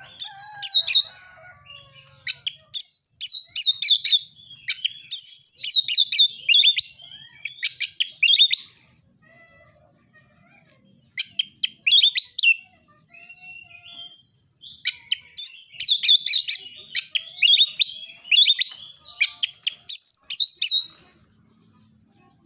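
Oriental magpie-robin (kacer) singing its fast 'narung' song: loud runs of rapid, sharply falling high notes in bursts of a few seconds, with quieter warbling in between.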